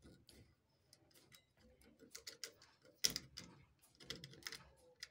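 Faint, irregular small clicks and taps of stripped electrical wires being pushed into a terminal connector and handled, with a sharper click about three seconds in.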